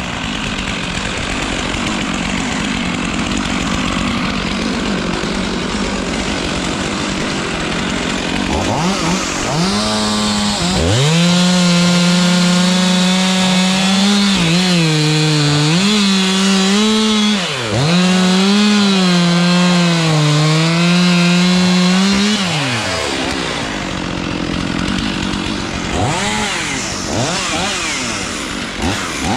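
Two-stroke chainsaw cutting into a tree. Through the middle it runs at a steady high pitch that sags a few times under load, and near the end the revs rise and fall.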